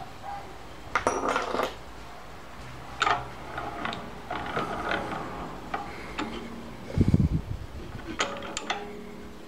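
Steel lathe tooling being handled: scattered metallic clinks and taps with a short ring, and one heavier dull knock about seven seconds in, as the boring bar and its cutter are set up.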